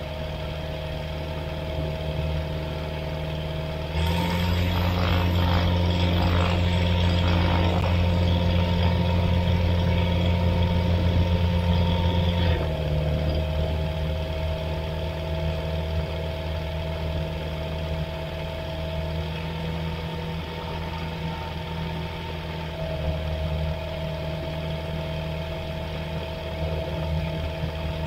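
Flight Design CTSW light-sport aircraft's Rotax 912 four-cylinder engine and propeller running steadily at taxi power. It grows louder from about four seconds in for roughly eight seconds, then settles back.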